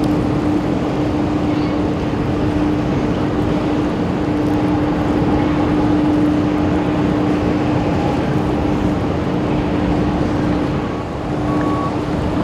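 A large ro-ro car ferry's engines running with a steady low hum while the ship comes in to berth. Constant wind noise rushes over the hum.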